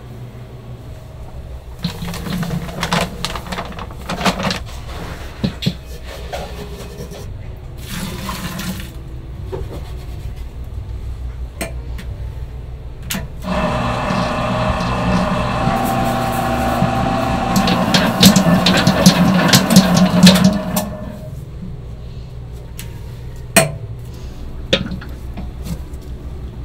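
Ingredients being poured and handled in a metal mixing bowl, with scattered knocks and rustles. Then a commercial spiral dough mixer runs for about seven seconds, its motor giving a steady whine over the churning dough with many small clicks, before it stops.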